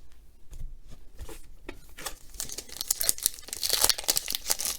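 Baseball cards and their pack being handled: scattered light clicks and scrapes of card stock at first, then from about halfway through a busier run of quick rustles and crinkles that grows louder toward the end.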